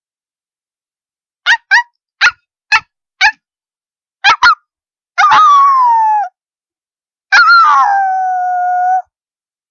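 A person imitating a dog with her voice: five short barks about a second and a half in, then a quick double bark, then two longer howling calls that fall in pitch, the last one held near the end.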